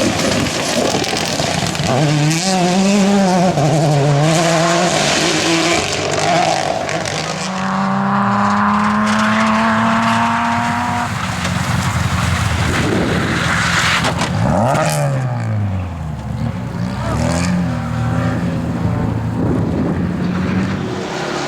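Rally car engines at racing speed, revving and changing pitch, over a loud rushing noise. Near the middle one engine climbs steadily in pitch under acceleration, and a few seconds later a car sweeps past, its pitch dropping.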